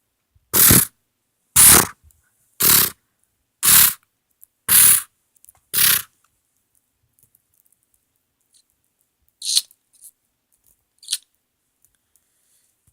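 Six short, sharp noise bursts, evenly spaced about a second apart, followed after a pause by two fainter clicks near the end.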